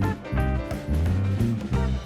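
Background music with a strong bass beat about twice a second and plucked-guitar notes, in an upbeat swing style.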